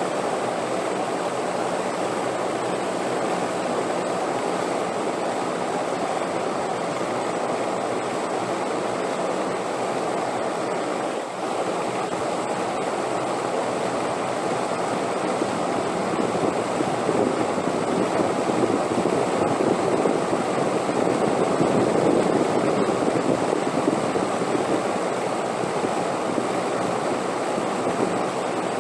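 Steady rushing wind, swelling slightly for a few seconds past the middle.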